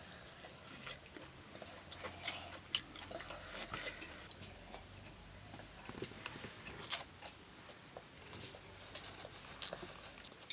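A person eating by hand: biting and chewing mutton ribs and scooping rice with curry, heard as scattered short clicks and smacks.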